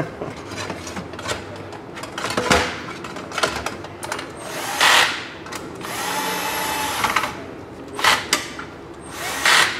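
Cordless drill/driver driving the Phillips screws that hold a car head unit in its metal mounting bracket, in several short runs; the longest, a steady whine, lasts about a second and a half. Plastic dash-trim parts clatter as they are handled before the driving starts.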